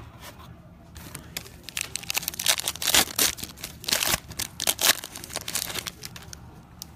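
Foil wrapper of a Panini Prizm football card pack being torn open and crinkled by hand: a run of sharp crackling rustles starting about a second in, loudest around the middle, dying away near the end.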